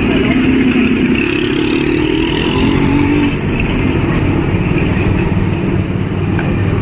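Street traffic: engines of motorcycles and other road vehicles running close by, as a steady low rumble.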